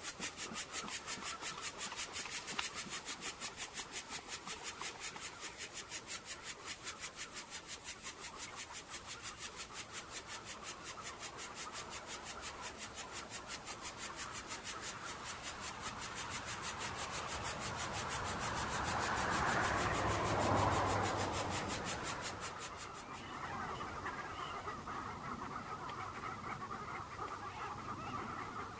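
A rhythmic rasping pulse, several beats a second, of the kind cicadas make in summer. It swells briefly about twenty seconds in and stops a few seconds later, leaving faint honking bird calls.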